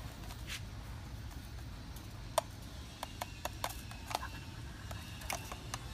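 Scattered sharp clicks and taps of utensils, a spoon against a seasoning jar and a stick against the pot, about a dozen, most around the middle and near the end, over a low steady rumble.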